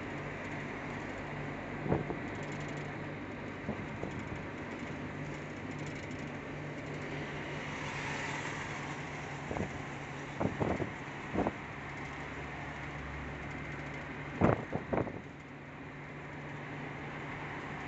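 Engine and road noise inside a vehicle's cab cruising on an expressway, a steady drone with a constant low hum. Several short sharp knocks or rattles cut through it, a few about ten seconds in and the loudest pair near the end.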